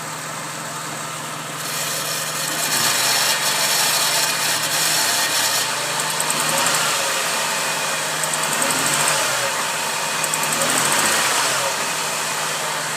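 Supercharged 3.3-litre V6 (VG33ER with an Eaton M62 supercharger) of a 2002 Nissan Xterra idling, then rising in speed and falling back a few times before settling to idle near the end. The engine carries a strange noise under the hood that the owner suspects comes from the supercharger.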